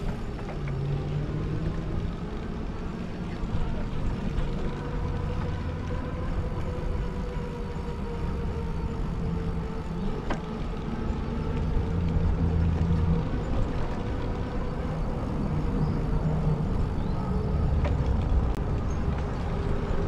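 Steady rumble with wind buffeting the microphone, coming and going in gusts, while riding a bicycle.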